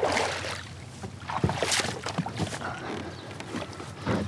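Shallow water splashing and swishing among rocks as a plastic kayak is brought in to the riverbank, with a sharp knock of the hull about a second and a half in.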